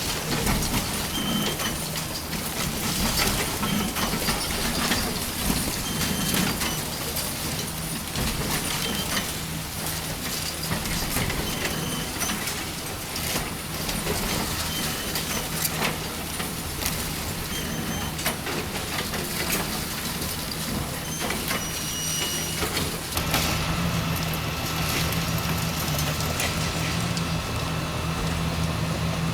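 Diesel engine of heavy demolition equipment running steadily, with scattered clanks and knocks of breaking material; the engine grows louder late on.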